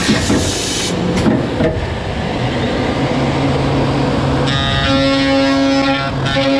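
Loud machining noise from a machine cutting aluminum logistic track: a dense, hissing cutting noise, joined about halfway through by a pitched, horn-like whine that breaks off and comes back several times.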